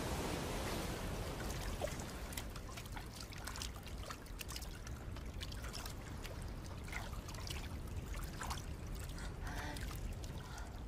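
Quiet trickling and dripping water, with scattered small drips and plops over a low watery hiss.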